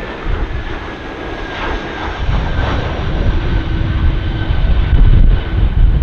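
Landing airliner's jet engines whining, a faint high tone gliding slowly downward, under heavy wind buffeting on the microphone that is the loudest part and swells about five seconds in.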